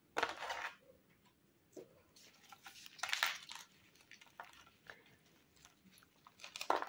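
Thin clear plastic orchid pot crackling as it is squeezed and twisted by hand to free the plant, with bark substrate rustling inside. A few crackling bursts, the longest about three seconds in, among small clicks.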